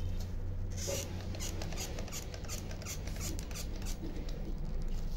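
Coarse burlap rubbed and handled as it is wrapped around a rolled piece of cardboard: irregular scratchy rustling starting about a second in, over a low steady hum.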